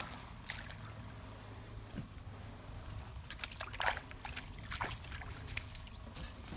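Rubber waders stepping through shallow muddy water with small splashes and sloshing as a freshly caught crucian carp is put into the water, with one louder splash about four seconds in.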